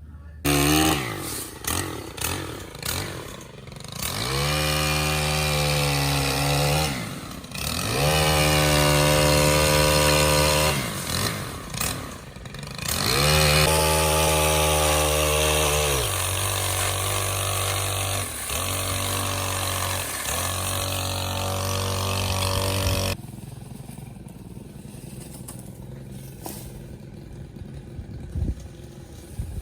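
Stihl HT 103 pole saw's small gas engine revving up in long bursts as it cuts limbs, then running at lower revs. About three quarters of the way through it cuts off abruptly, leaving only a quieter outdoor background hiss.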